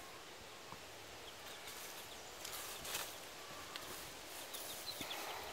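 Faint rustling and crunching in dry leaf litter, loudest about three seconds in. Near the end there are a few short, faint high peeps.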